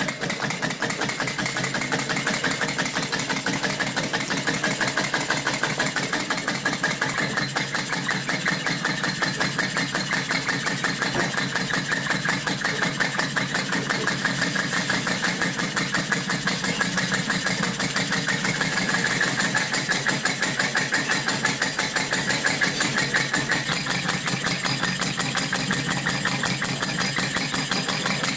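Glass model of Stephenson's steam engine running at a fast, even beat, its glass cylinder puffing out steam.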